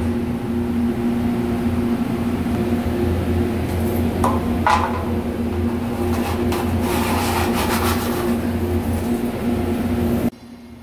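Steady machine hum, with scraping and rubbing as metal chips are cleared out of a machined bore by hand and with a tool: a short scrape about four seconds in, then a longer stretch of scratching. The sound drops away suddenly near the end.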